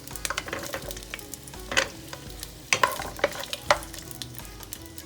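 Bell peppers sizzling in hot oil in a frying pan while being stirred, with the utensil knocking and scraping against the pan several times.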